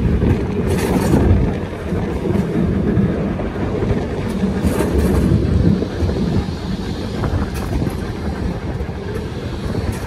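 Heritage tram running along the track: a steady low rumble with a few sharp clicks from the wheels on the rails.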